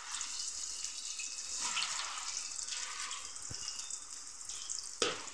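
Raw banana slices deep-frying in hot oil in a steel pan: a steady sizzling hiss with scattered crackles, one sharper pop near the end.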